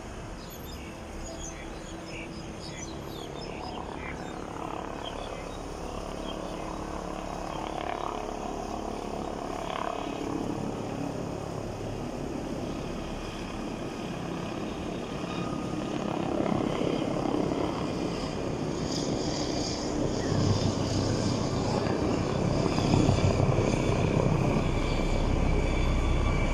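Helicopter flying overhead, the sound of its rotor and engine growing steadily louder as it comes closer, loudest over the last several seconds.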